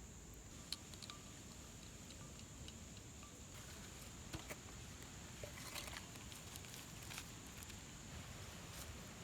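Faint, scattered sharp clicks and crackles, irregular and a few seconds apart, over a steady high-pitched hiss.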